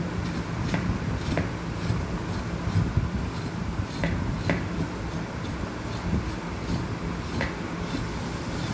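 Kitchen knife scraping the skin off a vegetable in short, irregular strokes, roughly one or two a second, over a steady low hum.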